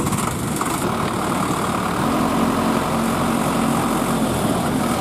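Diesel tractor engines running together, one tractor hauling a mud-stuck tractor out of a canal on a tow rope. A steady low engine hum comes in about two seconds in.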